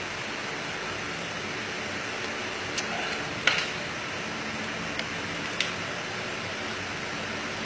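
Steady rush of air from a cooling fan running, with a few light clicks and one sharper knock about three and a half seconds in.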